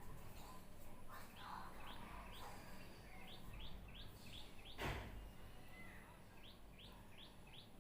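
Small birds chirping in short rising notes, some in quick runs of four or five. About five seconds in comes one brief, breathy noise close to the microphone.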